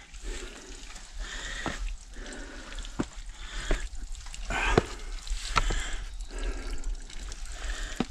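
Hiking shoes scuffing and stepping on a steep wet rock slab during a slow climb, with sharp taps on the rock about once a second.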